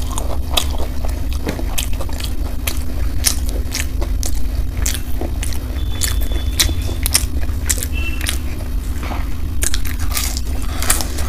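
Close-miked biting and chewing of crisp fried momos: many sharp, irregular crunches and mouth clicks over a steady low hum.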